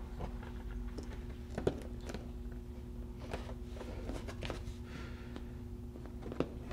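Hard plastic shell of a Harbor Freight auto-darkening welding helmet being handled and turned over: scattered light knocks and rubbing, with a sharper knock about a second and a half in and another near the end, over a steady low hum.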